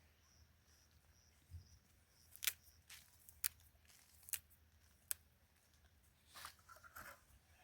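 A handful of sharp clicks or snaps, about five, irregularly spaced over a couple of seconds, over a quiet background with a faint, quickly repeated high chirp in the first second or so.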